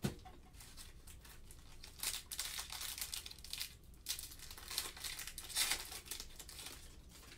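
Foil wrapper of a Panini Optic trading card pack being torn open and crinkled by hand, in several short crackling bursts, with a light knock right at the start.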